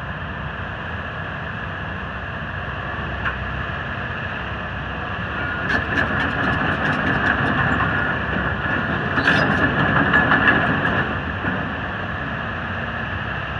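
The Isuzu diesel engine of a 2007 Hitachi ZX270LC-2 excavator running steadily. From about six to eleven seconds in it grows louder as the machine works, with scattered sharp metallic clicks.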